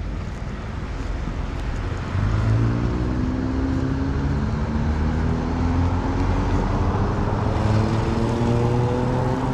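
Street traffic with a motor vehicle's engine close by. It gets louder about two seconds in, and its pitch rises slowly and steadily as the vehicle accelerates.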